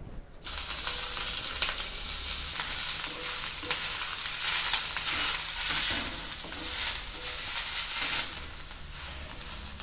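Chopped onions hitting hot oil in a black iron pan. They start sizzling suddenly about half a second in and keep frying as a wooden spatula stirs and scrapes them.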